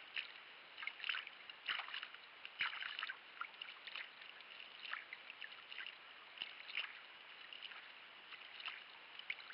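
Kayak paddle strokes in calm sea water: the blades dip in with splashes and drips, about one a second, softer after the first three seconds.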